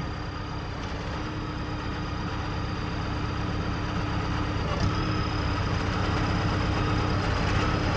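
Forklift engine running steadily while it lifts a load of lumber, slowly getting louder.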